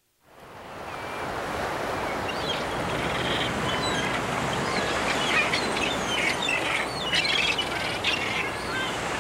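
Seabirds calling in many short, high chirps and squeaks over the steady wash of surf, fading in just after the start; the calls are busiest through the middle.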